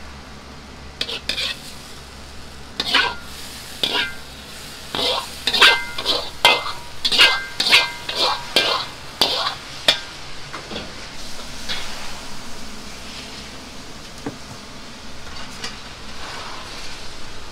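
Metal ladle scraping and knocking against a steel wok as a hot stir-fry is dished out: about a dozen sharp, ringing clanks with sizzling beneath, then only a low sizzle and hiss for the last several seconds.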